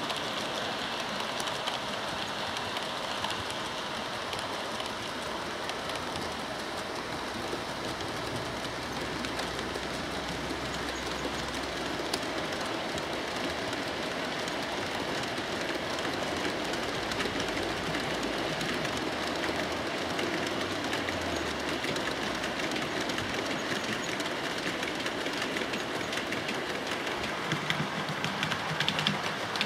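OO gauge model trains running on the layout: a steady rattling hiss of small metal wheels rolling on the rails, with fine clicks that grow stronger near the end.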